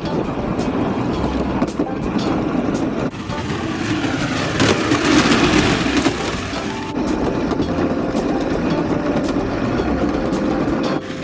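Hard plastic wheels of a toy pit bike rolling fast down a steep, rough concrete slope: a steady, coarse rolling rumble with small clicks, louder for a couple of seconds in the middle.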